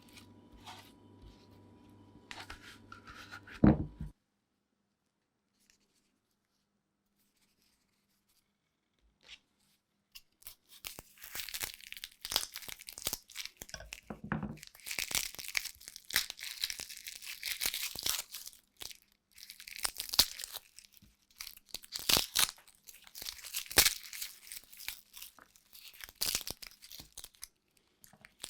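Dry crinkling and tearing noises in irregular bursts, starting about ten seconds in after a few seconds of silence.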